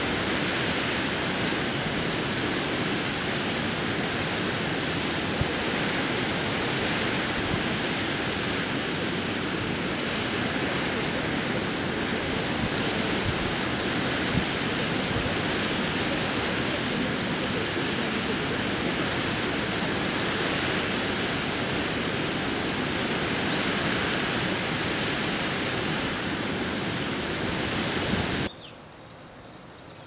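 Fast mountain river rushing over rocks in white water: a steady, even rush of water that cuts off suddenly near the end.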